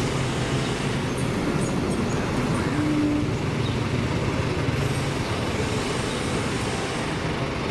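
Steady street traffic noise: a continuous mix of motorbike and vehicle engines running and passing.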